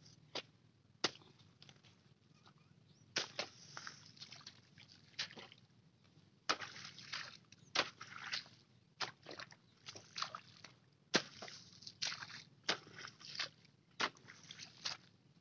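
A hoe chopping into waterlogged paddy-field mud as a bund is trimmed. Each stroke is a sharp wet slap with a brief splash and slosh of water. The strokes come about once a second, fewer in the first few seconds.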